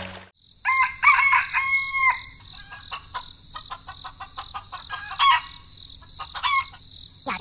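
A rooster crowing, then a run of short clucks and two brief calls, over a steady high chirring of insects.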